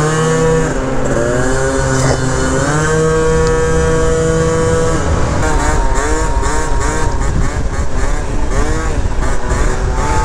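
Scooter engine revving while riding, its pitch swelling up and dropping again over and over, then held steady for a couple of seconds near the middle. Wind buffets the microphone.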